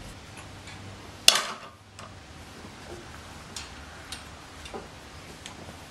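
Metal hand-tool work on a turbo oil-drain fitting: one sharp metallic click about a second in, then faint, light ticks roughly every half second.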